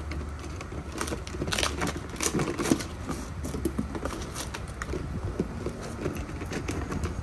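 Puppies at play: an irregular patter of clicks, taps and crackles from paws, teeth and a plastic bottle, over a steady low hum.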